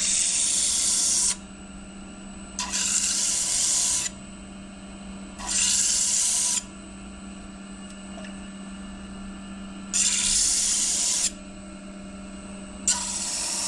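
Steel knife blade pressed against a spinning sanding disc on an electric disc sander in five grinding passes of one to two seconds each: a hissing rasp that starts and stops abruptly over the motor's steady hum. The disc is flattening the blade's grind and removing the earlier scratch pattern as part of a grit progression.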